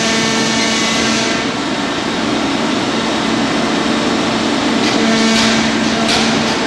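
Roundo R-21-S hydraulic section bending machine running, rolling a square steel bar through its three rolls into a ring, with a steady mechanical hum. A few brief high scraping sounds come in the last two seconds.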